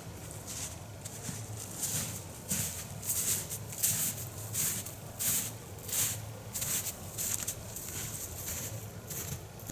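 Footsteps of a person walking at a steady pace over forest ground, about three steps every two seconds, each step a short burst of crunchy noise.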